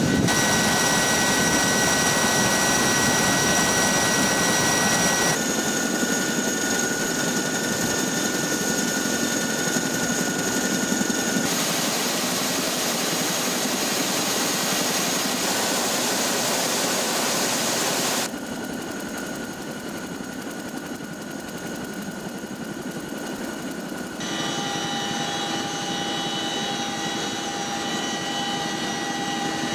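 CH-47F Chinook helicopter running, its two Lycoming T55 turboshaft engines giving a steady high whine over the rush of its turning rotors. The sound changes abruptly several times as the footage cuts between shots, and is quieter for a stretch in the second half.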